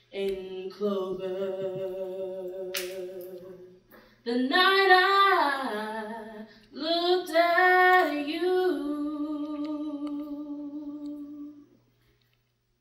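A woman singing solo without accompaniment, three long phrases of held notes with vibrato.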